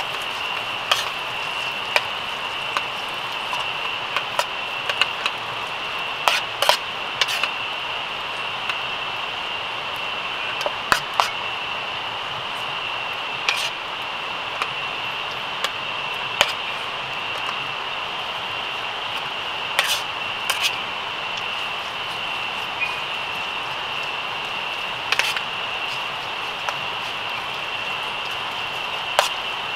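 Metal spoon clinking and scraping against an aluminium camping pan as meat is stirred, sharp clicks at irregular moments, several in quick pairs. Behind it, a steady high-pitched insect chorus of the night forest.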